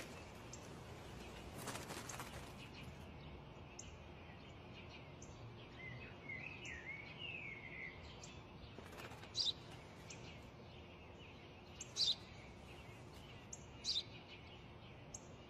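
Faint sparrow chirping. A short warbling phrase comes a few seconds in, followed by single short high chirps every couple of seconds.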